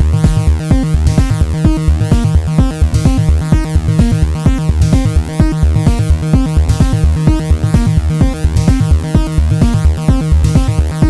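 Electronic music from an Arturia Drumbrute Impact analog drum machine playing a steady, busy beat, with Arturia Minibrute 2s analog synthesizer bass and lead lines over it.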